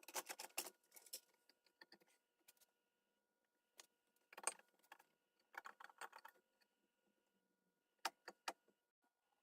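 Faint clicking and rattling in a few short clusters several seconds apart, as small hard parts or tools are handled.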